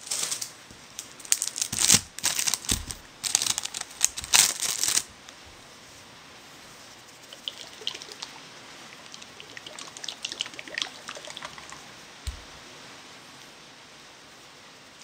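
Plastic wrapping crinkling and rustling loudly in irregular bursts for about five seconds, then faint light clicks of cutlery at the plate and one soft thump about twelve seconds in.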